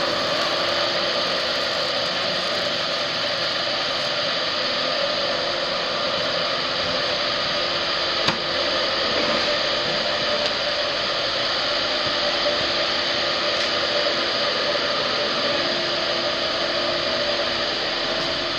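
A motor-driven machine, such as a fan or blower, running steadily with an even whir. A single sharp click about eight seconds in.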